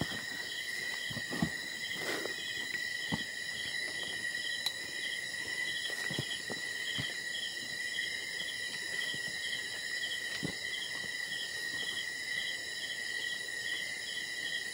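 Night-time forest insect chorus: several insects trill steadily at high pitch while one chirps in regular pulses, about two or three a second. A few faint taps and rustles sound now and then.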